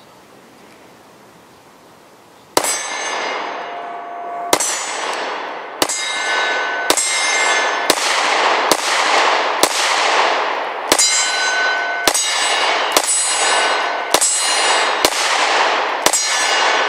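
Springfield Armory XD9 sub-compact 9mm pistol firing about thirteen shots at a steady pace of roughly one a second, starting about two and a half seconds in. Each shot has a long ringing, echoing tail. The pistol cycles every round without a stoppage.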